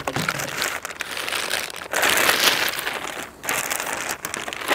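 Clear plastic bag crinkling and rustling as it is pulled off a rifle chassis, loudest a couple of seconds in.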